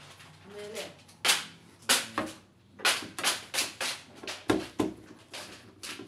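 Sharp knocks and clatter of a heat pump dryer's sheet-metal casing and panels being handled, about a dozen in quick, uneven succession.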